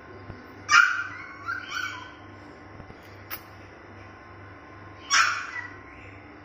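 White spitz puppy giving two high, sharp yelping whimpers about four seconds apart, the first trailing off into two shorter whines. It is the cry of a puppy afraid to go down a flight of stairs.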